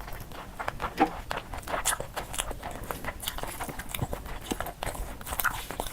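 A person chewing food close to the microphone: irregular wet clicks and small crunches in quick succession.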